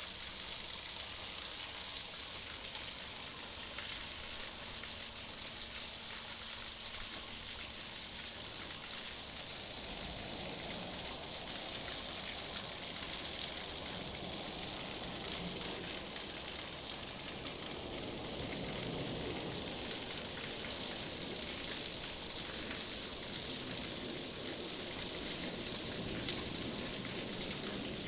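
Waterfall splashing into the quarry: a steady, hissing rush of falling water, with a little more low rumble in the second half.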